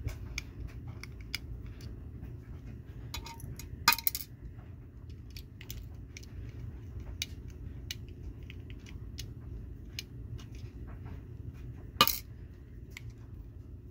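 Light metallic clicks and taps of a small screwdriver and a diecast metal model truck being handled while its base is taken off, with two sharper clicks, one about four seconds in and one near the end, over a steady low hum.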